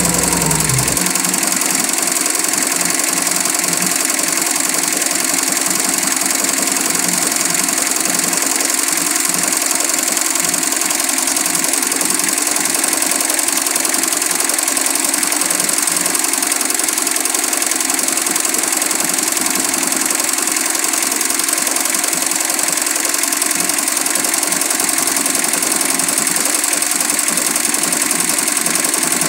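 Single-head computerized embroidery machine running steadily, its needle stitching at a fast even rate.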